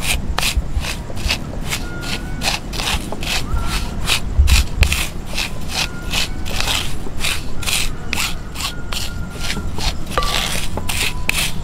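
Dried homemade arrowroot flour being worked by hand, crumbled and sifted, with rhythmic dry rubbing and scraping strokes at about three a second.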